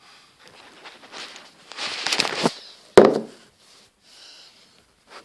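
Rustling and rattling of handled small objects, growing to a busy rattle about two seconds in, then one sharp knock about three seconds in.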